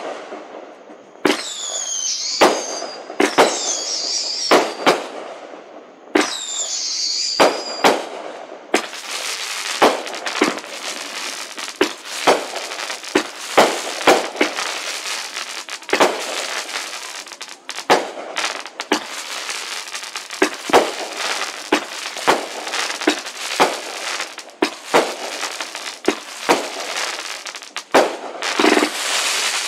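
Aerial fireworks bursting one after another, with high whistling glides between the first several bangs. From about nine seconds in, the bangs come thick and fast over a continuous crackle.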